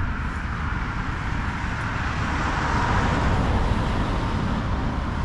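Steady road traffic noise, with a vehicle passing that swells up and fades away around the middle.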